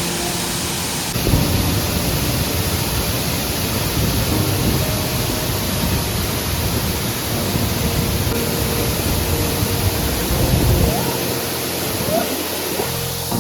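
Waterfall water pouring close by: a loud, steady rush of falling water.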